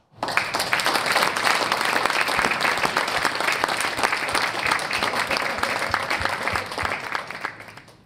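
Audience applauding, a dense patter of many hands clapping that holds steady and then dies away near the end.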